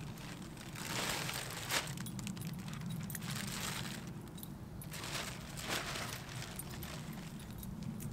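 Plastic carrier bag rustling and crinkling in several bursts as litter is handled into it, with a sharp click or knock about two seconds in. A steady low drone runs underneath.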